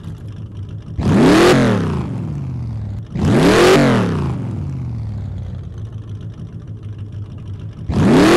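Car engine idling and revved three times, each blip rising in pitch and falling back to a steady idle: about a second in, at about three and a half seconds, and near the end.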